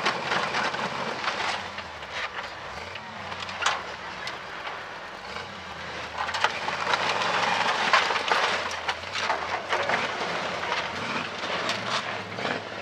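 K5 Blazer rock-crawler buggy's engine running and revving as the buggy drives down off the crushed cars, with sharp knocks now and then.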